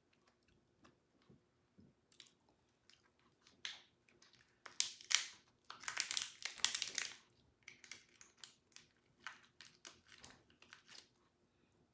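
Cooked lobster tail shell being cracked and peeled apart by hand: irregular crackles and crunches, densest and loudest about five to seven seconds in.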